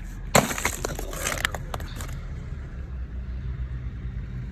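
A heavy machine's engine running at a steady low rumble. About half a second in comes a sudden loud clatter, followed by a second or so of scattered clicks and crackles.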